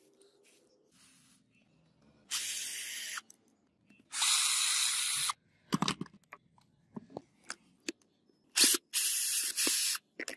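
Three short bursts of aerosol spray, each about a second long, with light clicks and knocks of handling between them.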